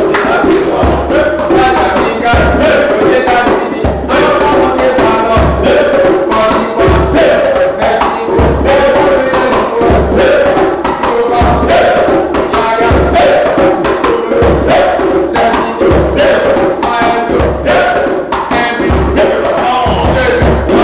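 Group of men chanting football supporters' songs together over a djembe hand drum, with a deep bass stroke about every second and a half and quicker slaps and hand claps between.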